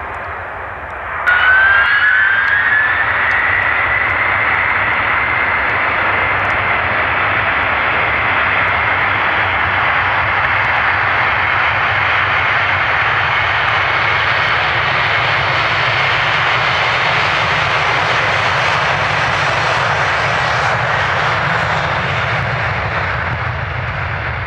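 Jet airliner engines at high power. They come in abruptly about a second in with a rising whine, which settles into a steady high tone over loud, even jet noise and eases slightly near the end.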